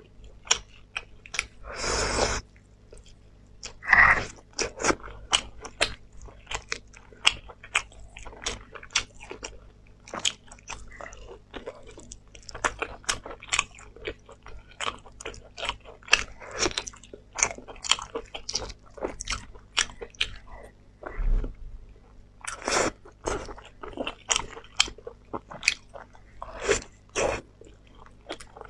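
Close-miked eating of sauce-glazed lamb ribs: many quick, wet biting and chewing clicks, with a few longer, louder sounds among them, two in the first few seconds and two in the last six.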